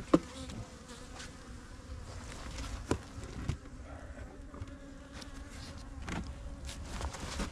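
Honey bees buzzing steadily around an open hive, with a few sharp knocks, the loudest right at the start.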